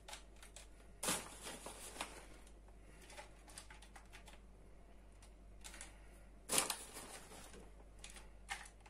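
Faint rustling and light ticking of shredded cheese being sprinkled by hand over an aluminium foil tray, with two louder crackly rustles, about a second in and about six and a half seconds in.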